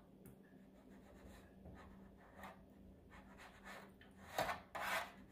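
Metal spoon scraping and rubbing against the bottom of a metal baking pan under water, crushing and dissolving pork bouillon cubes. Faint scrapes at first, with a few louder strokes near the end.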